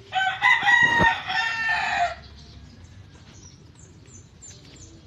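A rooster crowing once for about two seconds, loud and pitched with a rising and falling shape. Near the end, a few faint, short, high chirps from small birds.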